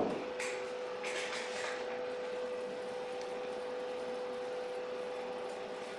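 CNC plasma cutting table running its cut program: a steady hiss of the plasma torch's air with a steady tone through it, and two short hissing puffs in the first two seconds.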